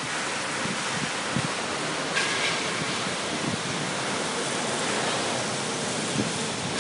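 Steady rushing noise, with a short hiss about two seconds in and a few faint knocks.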